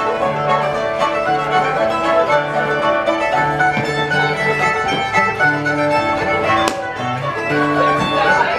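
Contra dance music led by a fiddle, with a steady beat and a repeating bass line.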